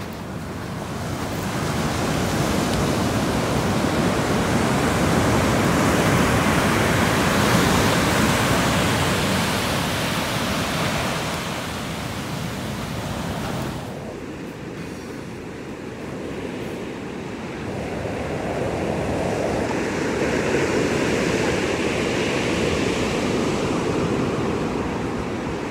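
Ocean surf breaking and washing up a sandy beach, a steady rush that swells and eases as waves come in. About fourteen seconds in the sound changes abruptly and turns duller, then swells again with the next waves.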